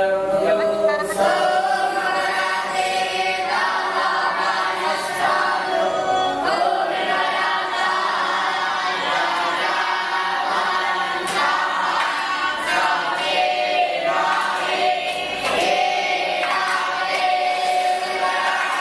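Many voices chanting together in unison, choir-like and continuous, with the melodic line shifting every second or two.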